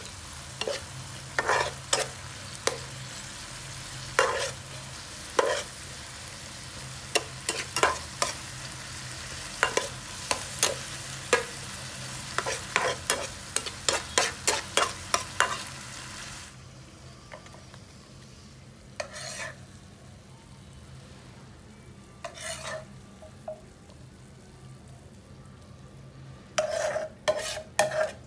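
Oil sizzling in a frying pan as a metal spatula stirs and scrapes fermented soybeans and shredded ginger, with many quick scrapes and taps. About two-thirds through the sizzle drops away, leaving only an occasional scrape, and a quick run of clinks comes near the end.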